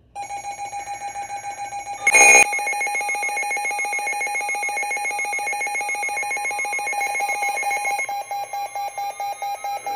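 Electronic emergency alert alarm tone, a steady pitch pulsing rapidly, sounded ahead of a marine warning message. About two seconds in there is a brief, much louder burst. Near the end a second tone slowly rises in pitch while the pulsing turns choppier.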